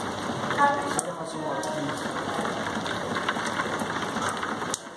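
Heavy rain pouring steadily, its level dropping suddenly near the end.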